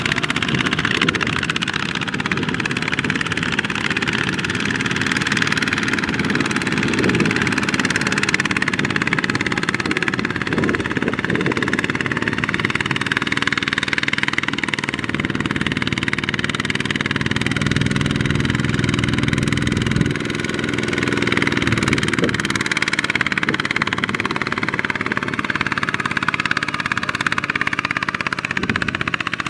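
Single-cylinder diesel engine of a Kubota two-wheel walking tractor running under load as it pulls a loaded trailer through rice stubble. The engine note grows heavier for a few seconds around the middle, then dips briefly.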